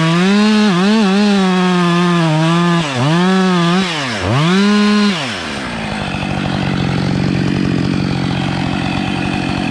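Two-stroke chainsaw at full throttle cutting into a small tree's trunk for the face notch, its pitch dipping several times as the chain bites and bogs. About five seconds in it drops to a steady idle.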